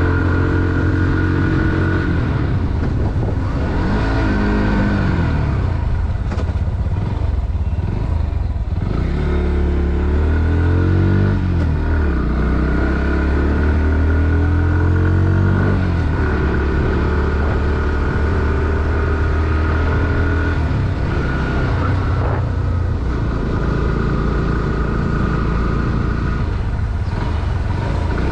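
Bajaj Pulsar NS160's single-cylinder four-stroke engine running under a rider, its revs rising and falling several times as it pulls and shifts, with a steady drone in between.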